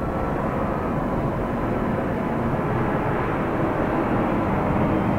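Steady rumble of airplanes in the background, slowly growing louder.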